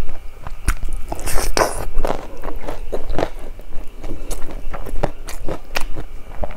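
Close-miked chewing and lip smacking: a mouthful of rice and curry eaten by hand, with many quick, irregular wet clicks.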